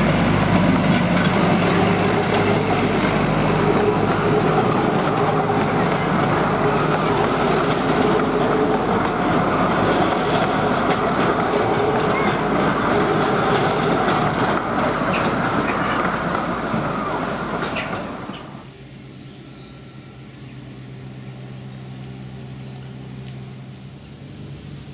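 Narrow-gauge train passing: an Alan Keef steam-outline diesel locomotive's engine running and its open coaches rolling by, wheels clattering on the rails. The sound cuts off suddenly about eighteen seconds in, leaving a fainter low steady hum.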